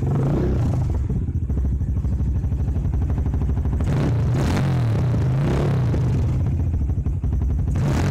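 Honda CRF230's air-cooled single-cylinder four-stroke engine, on its stock exhaust, idling and being blipped. The pitch rises and falls, with short revs about four seconds in, around five and a half seconds, and near the end.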